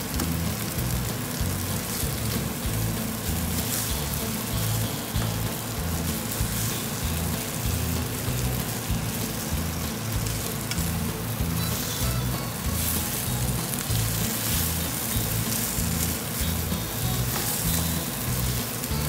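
Beef slices sizzling in a cream sauce in a nonstick wok over a raised gas flame, stirred steadily with a spatula to keep them from burning. Background music with a changing bass line runs underneath.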